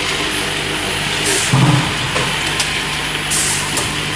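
Juice filling and capping line running: a steady machine hum with two short hisses and a few sharp clicks, and a dull thump about a second and a half in.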